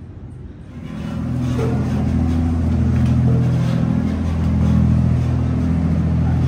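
An engine running with a steady low hum, growing louder about a second in and then holding steady.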